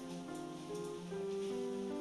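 Slow, soft instrumental music with long held notes that change every second or so.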